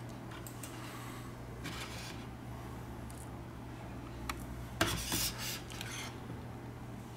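Quiet handling sounds from a phone teardown: a plastic pry tool and phone parts clicking and rubbing against each other and the work surface. There is a sharp click about four seconds in, a short scraping shuffle about five seconds in, and a steady low hum underneath.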